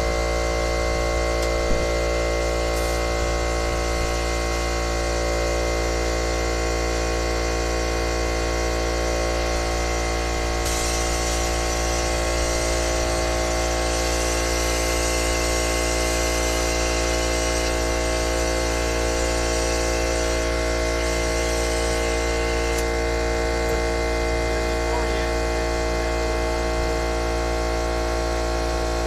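Harbor Freight McGraw 8-gallon 1.5 HP oil-free air compressor running steadily, its motor and pump refilling the tank. A higher hiss of air joins it for about twelve seconds midway.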